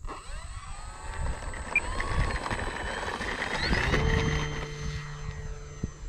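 Electric motor and propeller of an E-flite P-39 Airacobra RC plane taking off and climbing out. It is a propeller whine that starts suddenly, bends in pitch as the plane passes and is loudest about four seconds in. Wind rumbles on the microphone underneath.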